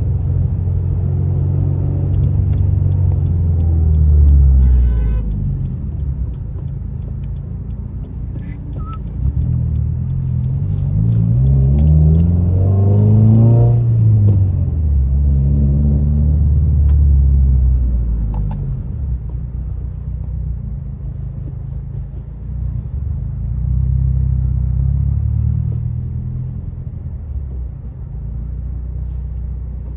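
Subaru WRX's turbocharged flat-four boxer engine, heard from inside the car while driving. The engine note climbs under acceleration about eleven to thirteen seconds in, then drops back, with stretches of lighter cruising either side.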